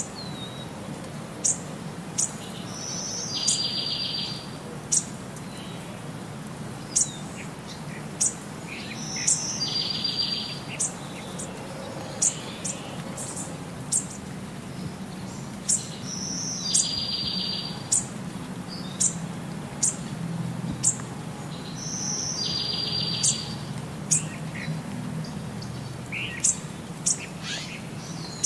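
Birdsong: sharp high chirps about once a second, with a trilled call that comes back every six or seven seconds, over a steady low hum.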